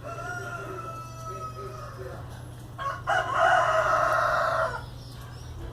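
A rooster crowing once, loudly, starting about three seconds in and held for nearly two seconds, with a fainter, slowly falling call in the first two seconds.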